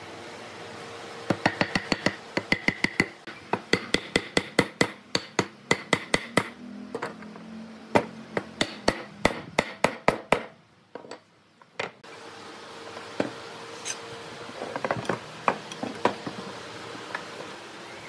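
Hammer blows knocking glued, dowel-jointed timber pieces together: a quick run of sharp strikes, about four a second, with a ringing tone, that stops abruptly. A few lighter wooden knocks follow near the end.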